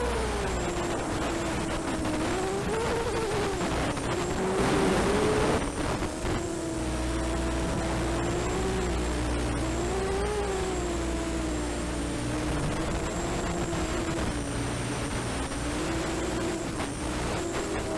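Diatone ET 200 quadcopter's four 1806 brushless motors spinning 5045 propellers, whining in flight, the pitch rising and falling as the throttle changes. A louder, rushing stretch comes about four to five and a half seconds in.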